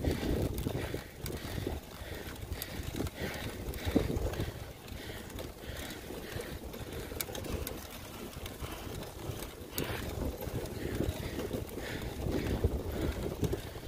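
Wind buffeting the microphone of a moving bicycle, a gusty low rumble that rises and falls, with faint scattered clicks.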